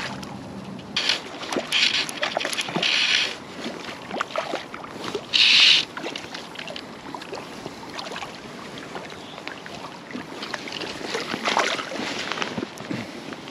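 Hooked trout splashing and thrashing at the water's surface as it is played and drawn to the bank into a landing net, in irregular bursts with one short, louder rush about five seconds in.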